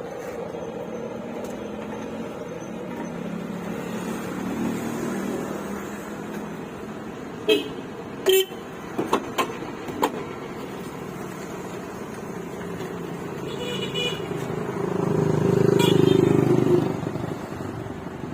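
Road traffic: vehicles running, with a few short horn toots about halfway through and a loud vehicle passing near the end.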